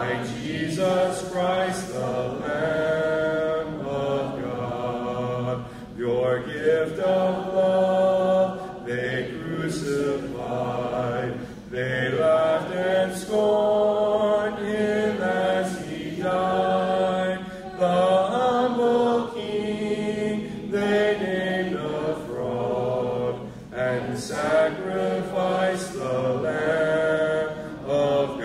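Congregation singing a hymn a cappella, voices only with no instruments, led by a man at the microphone; phrases of held notes with short breaths between them.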